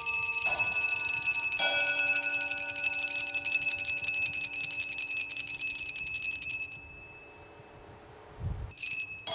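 Altar bells shaken in a rapid, continuous jingle for about seven seconds, ringing for the elevation of the chalice at the consecration, then stopping. A dull thump follows, and near the end a short ring of the bells starts again.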